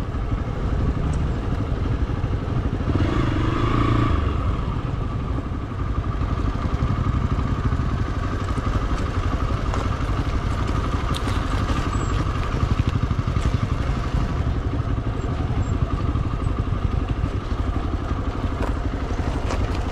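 Motorcycle engine running steadily at low speed while the bike is ridden slowly over rough rock, heard close up from the rider's seat. It swells briefly about three seconds in.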